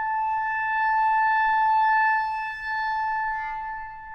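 B-flat clarinet holding one long, steady high note: a long-tone exercise in keeping the airflow and tone even.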